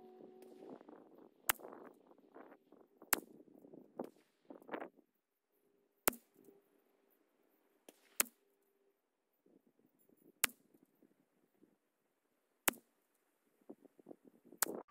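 A .22 LR rifle firing standard-velocity rimfire rounds: seven sharp cracks, each with a short ring, spaced about two seconds apart.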